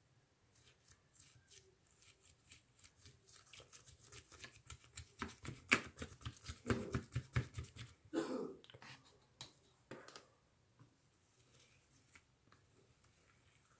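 Rapid clicking and rustling of small objects being handled by hand. It thickens into a dense run in the middle, with a fuller rub about eight seconds in, then thins to scattered taps.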